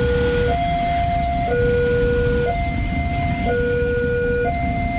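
Railway level crossing warning alarm sounding from its loudspeaker: two steady tones alternating low-high, each about a second long, signalling that a train is coming with the barriers down. Underneath is a steady low rumble of idling motorcycle engines.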